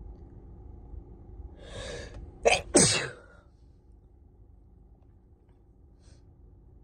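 A person with a cold sneezing: a breathy inhaling build-up, then a sneeze that bursts out in two quick loud blasts about two and a half seconds in.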